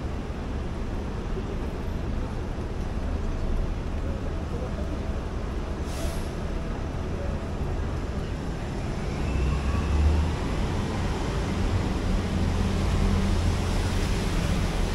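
Steady city street traffic, with a heavy vehicle's low engine rumble growing louder in the second half. A brief hiss comes about six seconds in.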